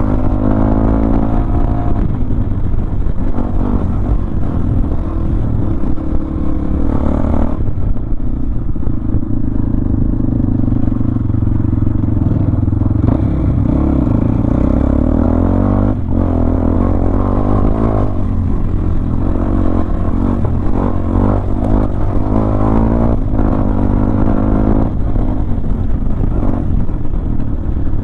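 Honda CB500X's 471 cc parallel-twin engine running under way on a dirt track, its pitch rising and falling several times with throttle and gear changes.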